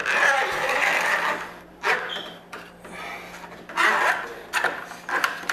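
A tool scraping along a refrigerator door's gasket channel, clearing debris out of it, followed by a run of short knocks and scrapes.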